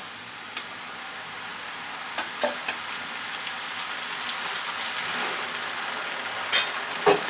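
Coated macaroni deep-frying in hot oil: a steady, strong sizzle from the whole pot. It is broken by a few sharp clicks as it is stirred.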